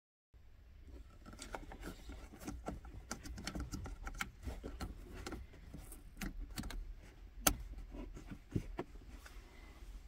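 Plastic handbrake warning light switch of a VW Polo Mk4 being handled and pushed down into its metal bracket: a run of small clicks, taps and rustles, with one sharper click about seven and a half seconds in as it snaps into place.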